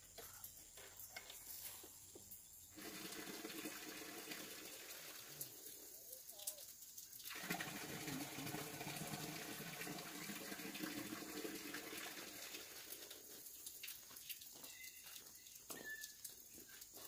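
Water running in two stretches: a steady rush starts about three seconds in, breaks off briefly, then returns fuller for several seconds before fading out.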